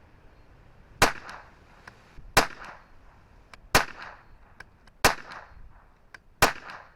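Five shots from a CZ 457 bolt-action .22 LR rifle firing Eley Contact 42-grain subsonic ammunition, evenly spaced about 1.3 seconds apart, each a sharp report with a short ring-down and fainter clicks in between.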